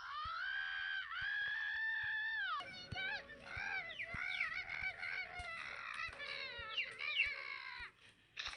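A cartoon character's high-pitched voice, run through a distorting audio effect, letting out one long held cry that drops away, then a run of shorter wavering squeals that rise and fall.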